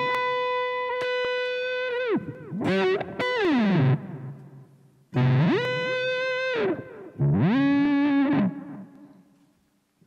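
Overdriven electric guitar played through a Zoom G1xOn's expression-pedal pitch shift, faking whammy-bar dive bombs. A held high note dives down about two seconds in, followed by quick swoops up and down. Another note slides up into place, holds and dives, and a lower held note near the end drops and fades away.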